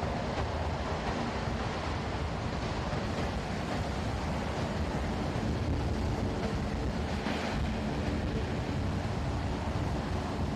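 Navy LCAC hovercraft running on its air cushion across water: the steady rushing noise of its gas turbines, lift fans and propellers with the spray thrown up beneath the skirt, with a few faint steady tones underneath.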